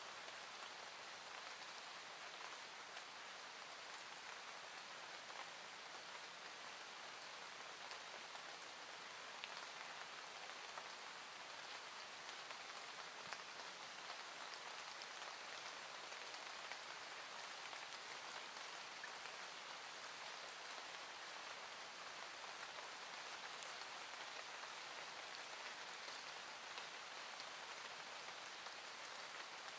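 Faint, steady rain falling, with scattered small drop ticks.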